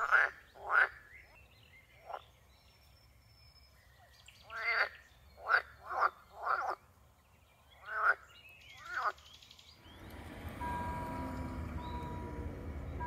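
Frogs croaking: about nine short, separate croaks with quiet gaps between them. About ten seconds in, the sound switches to a level-crossing warning signal sounding in repeated one-second tones over a low hum of traffic.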